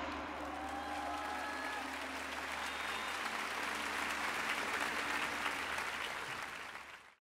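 Large concert audience applauding at the end of a song, the clapping swelling a little midway, then fading and cutting off abruptly near the end.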